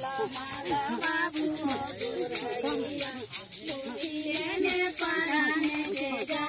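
A devotional folk song: women's voices singing a wavering melody over a rattle that keeps a steady, quick beat.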